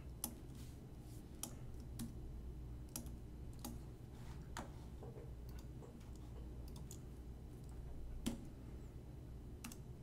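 Faint, scattered clicks of computer keys or a mouse, about ten spread irregularly, the sharpest about eight seconds in, over a low steady hum.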